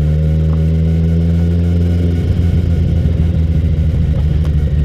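Motorcycle engine running steadily at riding speed, heard from on the bike, over a rough, uneven road surface.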